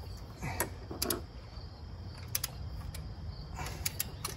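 Torque wrench ratcheting with a handful of short sharp clicks as it is pulled on a cylinder head bolt of a Jeep 4.0 inline-six, torquing the head down.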